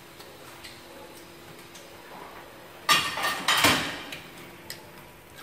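Crunching of a bite of crispy fried pork-fat cracklings: a short run of loud, sharp crunches about three seconds in, lasting just over a second.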